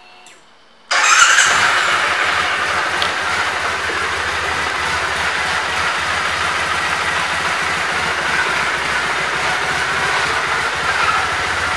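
A 2009 Triumph Bonneville T100's 865 cc air-cooled parallel-twin engine comes in suddenly about a second in, flares briefly, then settles to a steady idle.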